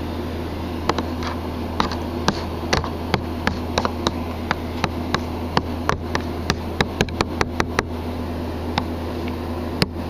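Metal pick tapping and poking at a lump of gelled stop-leak sealant in a clear plastic container: a string of sharp, uneven clicks, about two or three a second, thinning out near the end. A steady low hum runs underneath.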